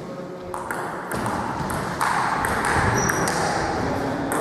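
Table tennis ball being played in a doubles rally: a string of sharp, irregularly spaced ticks as it strikes bats and table, with a broad hiss of background noise swelling from about halfway through.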